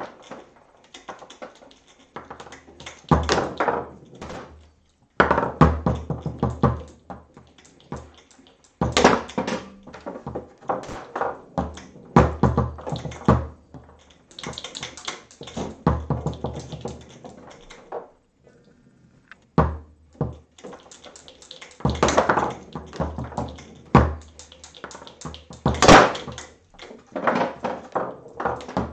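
Foosball table in play: flurries of rapid taps and knocks as the ball is struck and passed between the plastic men, with the rods clacking as they are spun and slid. There is a brief lull around two-thirds of the way through.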